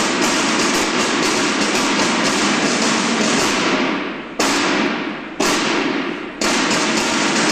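Marching snare drum corps playing rapid continuous drumming, then three sharp unison strikes about a second apart, each ringing out in the hall, before the rapid drumming picks up again.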